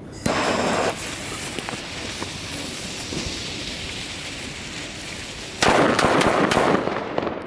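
A gas torch lighter hisses briefly as it lights the fuses of four Broekhoff Dynamite firecrackers. The fuses then sputter and hiss for about five seconds. About five and a half seconds in, the firecrackers go off in several loud bangs in quick succession.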